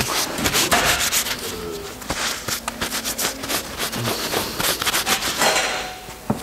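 Irregular rubbing, scraping and clicking of metal parts being handled, with many quick clicks close together.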